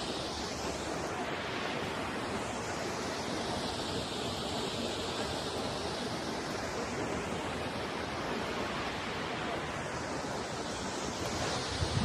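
Steady rush of a waterfall pouring over rock, with wind gusting on the microphone near the end.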